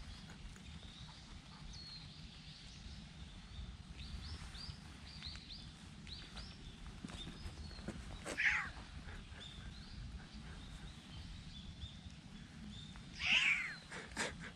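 A male cat meowing hoarsely twice, once about halfway through and again, louder, near the end. Birds keep up short, high chirps in the background.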